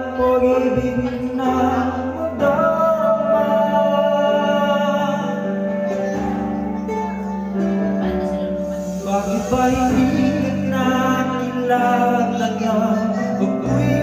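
A man singing a slow ballad into a handheld microphone over backing music, with long held notes.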